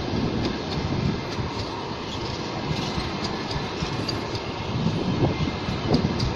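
Passenger coaches of a train rolling past at close range: a steady rumble of steel wheels on rails with a scatter of light clicks, a little louder near the end as the bogies at a coach joint go by.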